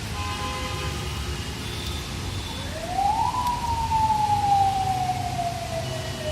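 Steady rain hiss with a siren wailing over it: about two and a half seconds in it rises quickly, then slides slowly down in pitch.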